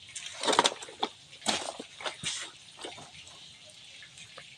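Several short scraping and knocking noises from a black plastic crate of fish being handled and lifted off the concrete, the loudest about half a second in, dying away after about three seconds.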